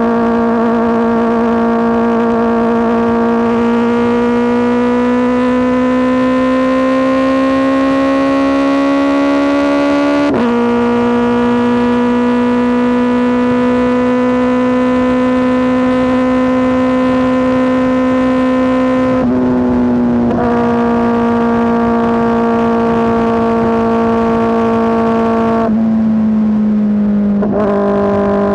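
Kawasaki ZX-4RR's 399 cc inline-four running hard through an SC Project S1 exhaust, a loud, high engine note. It climbs slowly, drops sharply about ten seconds in as it shifts up, holds steady, and steps lower twice near the end.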